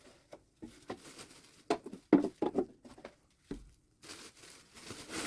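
Loose aspen bedding rustling and clattering in short, irregular bursts as it is scooped out of the tank.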